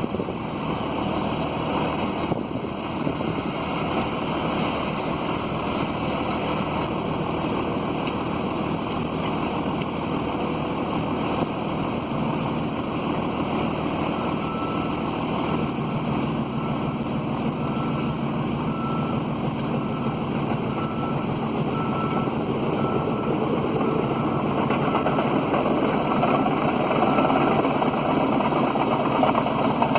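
A large engine running steadily. About halfway through, a short, high beep starts repeating a little under once a second and keeps going almost to the end.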